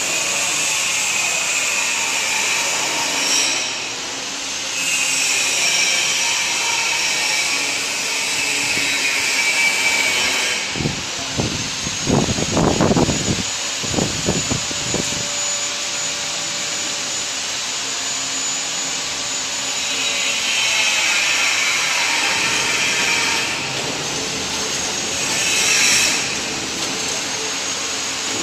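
Automatic jelly-cup feeding and packaging machine running: a steady mechanical whir with a high hiss that comes and goes. Partway through there is a short spell of rattling knocks.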